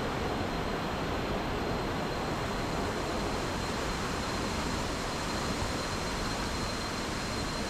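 Waterfall water rushing in a steady, even roar, with a thin steady high-pitched tone over it.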